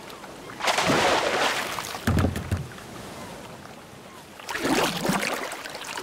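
Sea-water sound effect: two rushing swells of waves washing, about a second in and again near the end, with a low splash around two seconds in.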